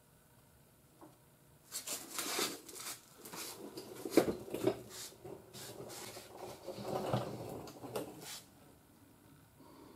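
Handling noise from a handheld camera being moved about: an irregular run of rustles, scrapes and clicks lasting several seconds, with a sharp knock about four seconds in.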